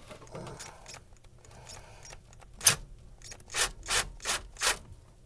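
DeWalt cordless driver backing a screw out of the air conditioner's wire clip: a sharp click about two and a half seconds in, then four short bursts about a third of a second apart as the screw is driven out.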